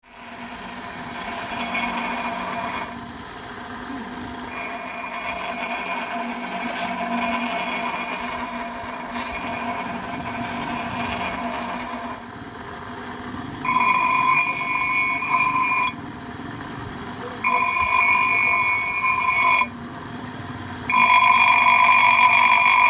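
A power tool working metal: a high ringing whine that comes in passes of a few seconds, with four short breaks when it drops away.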